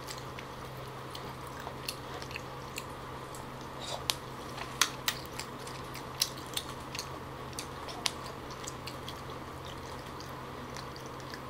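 Soft, sparse clicks and small wet picking sounds of chopsticks and fingers pulling meat from a steamed boxfish, a few clicks sharper than the rest, over a faint steady hum.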